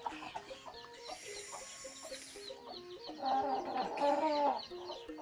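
Chickens clucking in short calls, with many short high chirps throughout and a louder run of clucking about three to four and a half seconds in.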